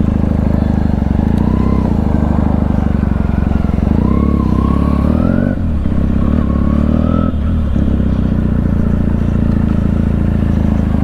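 Benelli 300's parallel-twin engine running while riding, its steady note dipping briefly twice, about five and a half and seven and a half seconds in.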